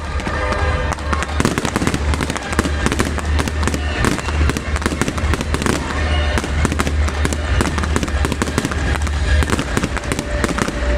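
Fireworks display going off in a dense, rapid barrage of crackling bursts and bangs, many a second, with music playing underneath.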